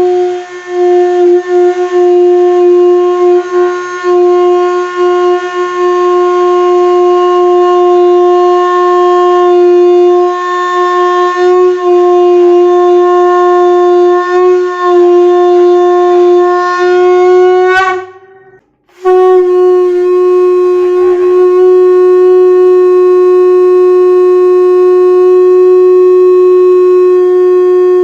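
Conch shell (shankha) blown in long, steady held notes with strong overtones. The first blast rises slightly in pitch and breaks off about 18 s in; after a pause of about a second a second long blast begins and holds on.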